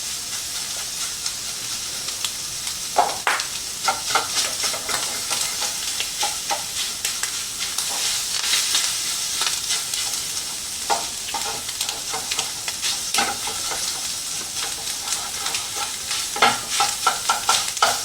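Shredded beef sizzling steadily as it browns in a skillet, with the occasional scrape and clack of a utensil stirring it, several in quick succession near the end.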